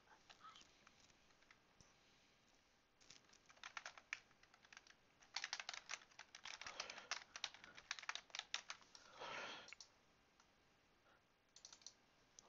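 Typing on a computer keyboard, faint: two runs of quick keystrokes with a pause between them, a brief soft noise about nine seconds in, and a few last clicks near the end.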